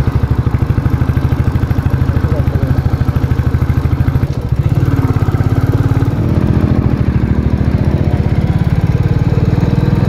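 Motorcycle engine running while the bike is ridden, a steady fast pulsing beat that eases briefly about four seconds in and then carries on.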